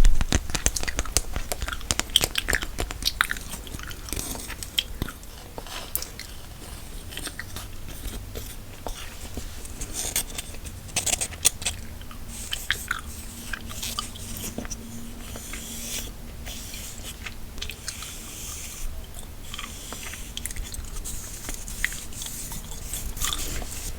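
Gum chewing close to the microphone: irregular wet clicks and smacks throughout.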